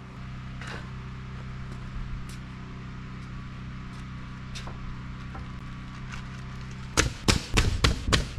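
A steady low hum, then about seven seconds in a rapid run of sharp knocks, roughly six a second: hammer blows on wooden wall framing.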